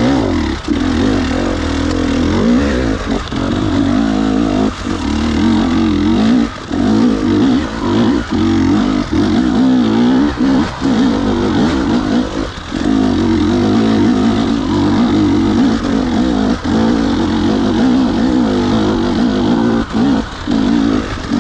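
Two-stroke enduro motorcycle engine revving up and down under load, its pitch wavering, with the throttle briefly chopped every second or few.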